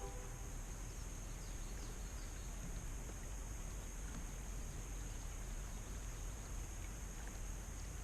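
Faint outdoor ambience by a lake: an even background hiss with a steady high-pitched tone, and a few faint bird chirps in the first couple of seconds.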